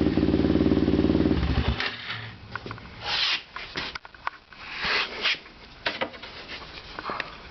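Kawasaki KFX400 quad's single-cylinder four-stroke engine idling, then shut off about one and a half seconds in. After that, a scatter of clicks, scrapes and rubbing from hands handling parts.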